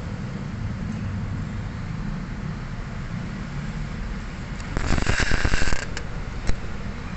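Steering rack parts being handled during reassembly: a scraping, rattling burst of about a second a little past halfway, then two light clicks, over a steady low rumble.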